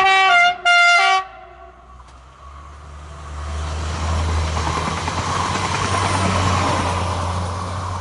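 Two short blasts of a TER AGC railcar's two-tone horn in the first second, each changing pitch partway. The diesel multiple unit then runs past close by, its engine running low and steady under the rumble of wheels on the rails.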